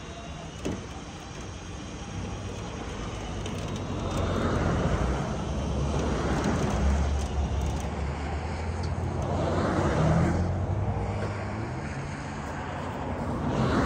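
Highway traffic passing at speed: about four vehicles go by one after another, each swelling and fading, over a low steady engine hum.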